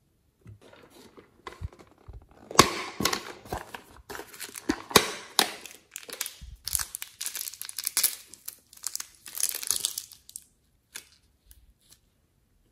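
A thin plastic piping bag filled with glitter clay crinkling as it is handled and squeezed, a run of irregular crackles that is loudest about two and a half and five seconds in and dies away near the end.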